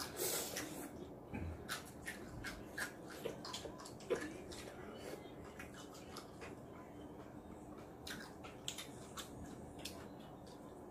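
Children eating jjajangmyeon with chopsticks: noodles slurped and chewed, with wet smacking clicks scattered through, busiest in the first half and sharpest about four seconds in. A brief bit of voice comes near the start.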